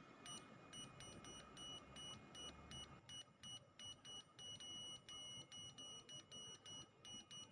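Piezo buzzer of a homemade transistor sound circuit playing a telegraph effect: faint, high-pitched beeps, short and long, in an uneven pattern like Morse code dots and dashes.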